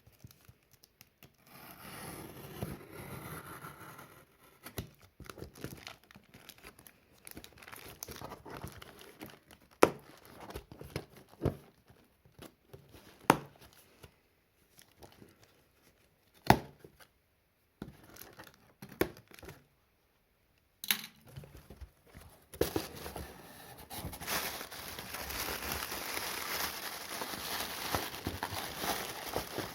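Product packaging being opened by hand: scattered rustling with several sharp clicks and taps, then, about three-quarters of the way through, steady crinkling and tearing of wrapping.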